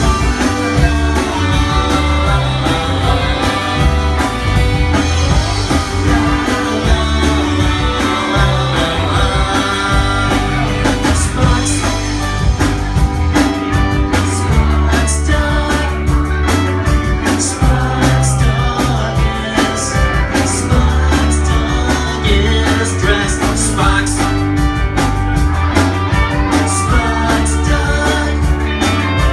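Live rock band playing: electric guitars and drum kit keeping a steady beat, with singing.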